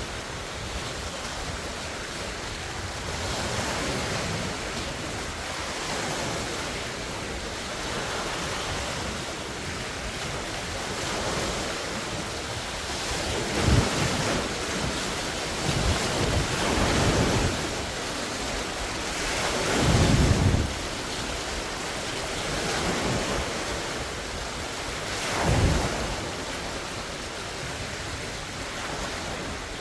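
Large wind-driven lake waves splashing in a steady rush, with several louder splashes in the second half. Strong wind rumbles on the microphone.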